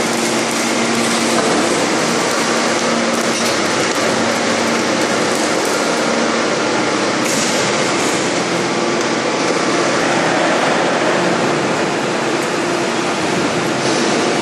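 Large hydraulic forging press running during hot forging: a steady, loud mechanical din with a faint low hum and a few light clicks.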